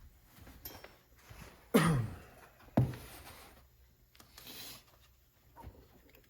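Arrma Kraton RC truck's brushless motor and drivetrain given two short throttle blips about a second apart, each spinning the wheels up and then coasting down with falling pitch, during a gentle first run-in on a stand.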